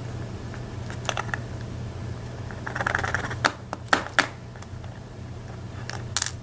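Small sharp metal clicks and a short scraping rattle of lock pins and a pick being handled while a pin-tumbler lock cylinder is taken apart. There are a few light clicks about a second in, a brief rattle around three seconds, three crisp clicks soon after, and one more near the end.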